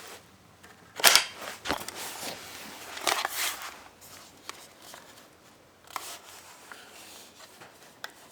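Metallic clicks and clacks of a GSG-5 .22 LR rifle's action being worked in a chamber check. There is a sharp clack about a second in, a cluster of clicks around three seconds, and a lighter click near six seconds.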